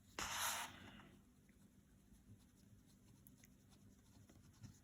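A writing stroke scratching for about a second near the start, followed by very faint small ticks.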